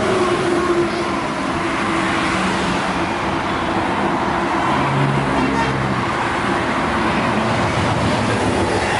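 Road traffic passing at speed: a steady wash of tyre and engine noise from cars and buses on a highway, with faint engine hum rising and fading as vehicles go by.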